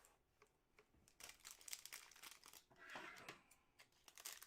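Faint crinkling and rustling of trading card packaging and cards being handled, in short scattered bursts.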